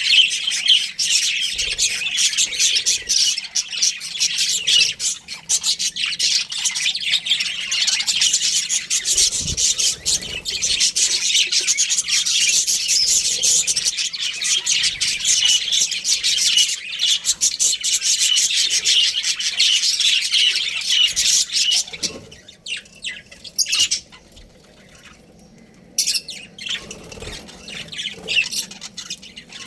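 Small pet parrots chirping and squawking nonstop in a dense, high-pitched chatter; after about 22 seconds it thins to a few scattered calls with a short lull, then sparse chirps return near the end.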